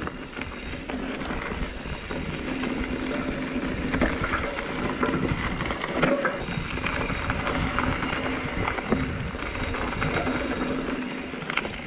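Mountain bike rolling along a dry dirt singletrack: steady tyre rumble on the dirt with frequent small clicks and rattles from the bike.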